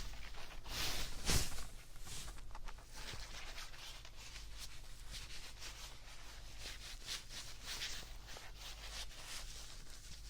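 Close-miked soft rustling and scratching made of many short strokes, with one sharper knock about a second and a half in.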